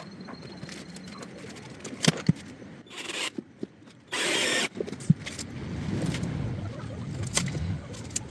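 Cordless drill driving self-drilling decking screws into a wooden pillar in short bursts, with sharp knocks of wood and tools being handled.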